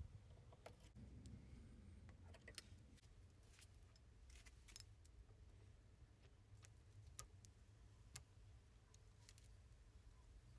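Near silence: room tone with a low hum and faint, irregular light clicks scattered through it.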